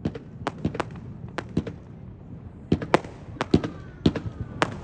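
Aerial fireworks display: an irregular string of sharp bangs as shells launch and burst. There is a short lull about two seconds in, then the bangs come faster.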